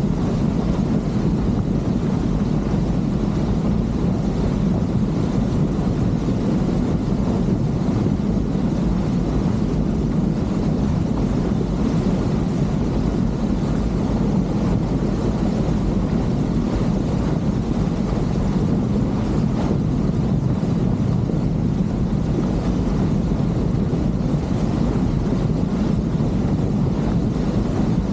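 Motorboat engine running steadily underway, a low, even drone that does not change.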